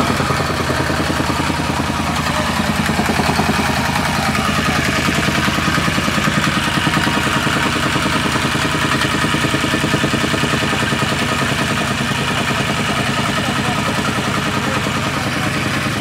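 Gasoline tamping rammer (jumping-jack compactor) running steadily, its small engine and ramming foot making a rapid, even pulsing as it compacts loose soil.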